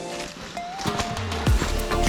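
Background music, with a few sharp knocks mixed in.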